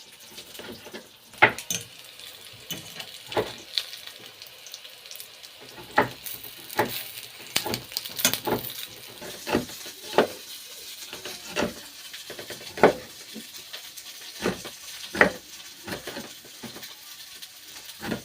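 Sausages sizzling in a frying pan, with a utensil knocking and scraping against the pan at irregular intervals, roughly once a second, as they are stirred and turned.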